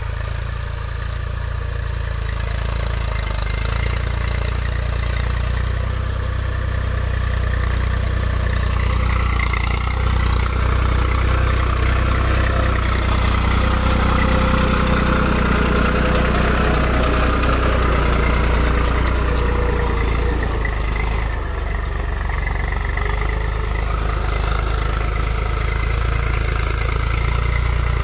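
Eicher 380 tractor's diesel engine running steadily under load as it pulls a tined cultivator through ploughed soil. It is loudest around the middle, as the tractor passes close.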